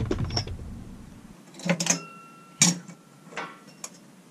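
Small metal parts clinking against a metal parts tray on a workbench: about four sharp knocks, two of them leaving a short ringing tone.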